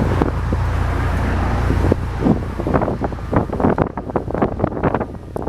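Low rumble of a vehicle with wind buffeting the microphone. From about two seconds in, the rumble drops and a run of irregular short knocks and rustles comes through.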